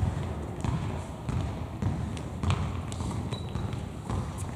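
Basketball being dribbled on a sports-hall floor: a steady run of echoing bounces, a little under two a second.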